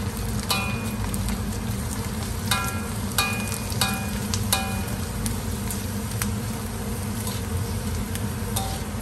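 Rice crackers sizzling steadily as they fry in hot oil in a steel wok. A perforated metal skimmer stirring them clinks against the wok about five times in the first half and once near the end, each strike ringing briefly.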